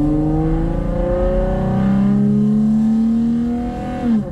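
Car engine fitted with a cold air intake accelerating hard, its intake drone rising in pitch. The pitch steps down at a gear change about two seconds in and climbs again, then falls off sharply near the end.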